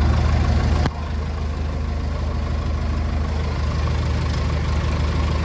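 Massey Ferguson backhoe engine running steadily at idle, dropping a step in level about a second in and carrying on evenly.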